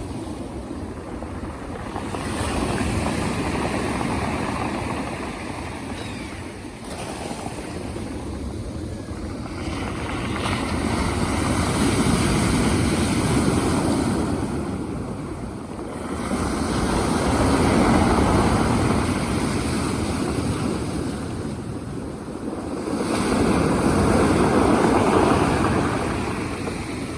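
Black Sea surf: waves breaking and washing up on the shore, the noise of the surf swelling and ebbing in slow surges every five or six seconds.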